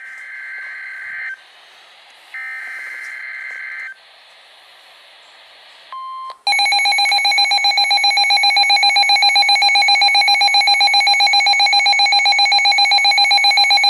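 NOAA Weather Radio emergency alert: the buzzy digital data bursts of the SAME header, then about six seconds in a short steady 1050 Hz tone. This gives way to a loud, rapidly pulsing electronic alarm beep from the weather-alert receiver.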